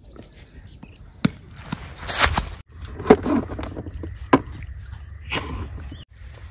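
Kitchen knife chopping tomatoes on a plastic cutting board: a few sharp knocks of the blade on the board, about a second apart, over outdoor background noise, with a short louder rustling burst about two seconds in.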